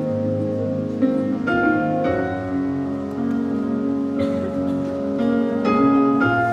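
Instrumental music: a melody of plucked-string notes, changing about every second, over a held low note.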